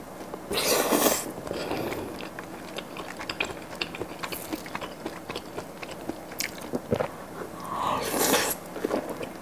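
Close-miked eating: a bite into a grilled kielbasa sausage about half a second in, then chewing with many small sharp clicks, and another loud mouthful at about eight seconds.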